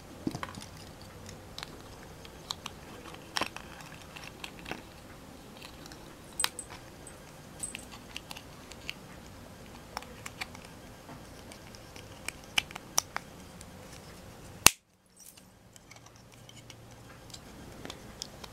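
Small plastic Playmobil parts clicking and tapping in the fingers as a tiny clothes hanger is worked into a doll's dress, scattered light clicks with one sharp click near the end, after which the sound drops out for a moment.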